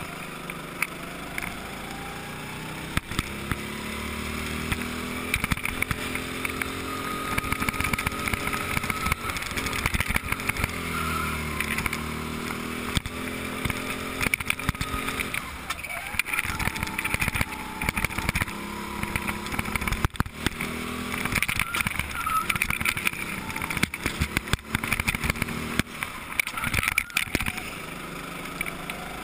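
Go-kart engine heard from the driver's seat, its revs rising and falling again and again as the kart laps the track. Frequent short knocks and rattles run through it.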